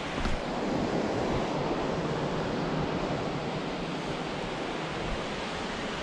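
Steady rush of water from a mountain waterfall, with one sharp knock of a footstep on rock about a quarter second in.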